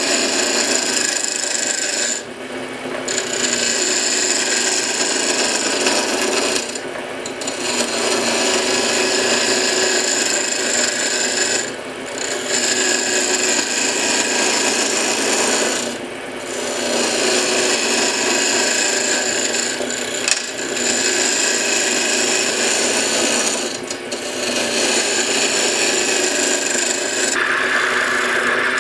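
Wood lathe spinning a wooden blank while a sharp roughing gouge takes light cuts to round it off: a steady rasping cut, broken by short lulls every four to five seconds as the tool comes off between passes.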